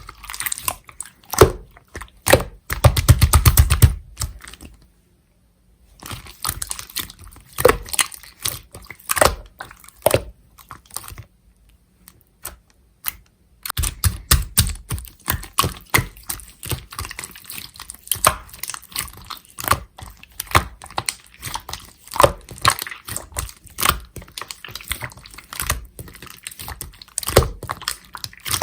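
Clear slime being squeezed and pressed by hand, giving rapid, sharp wet clicks and pops in quick runs. It stops twice for a second or two, about a quarter of the way in and again near the middle.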